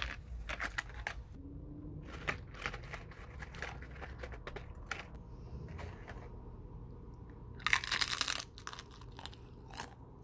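Crisp fried spinach crackers rustling and crackling against one another and the paper lining of a tray as they are tipped in from a strainer and moved by hand, in scattered small crackles with a louder rush of crackling about eight seconds in.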